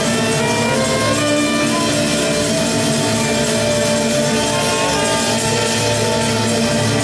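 Live chamber ensemble playing, with trumpet and bowed violins holding long, sustained notes together.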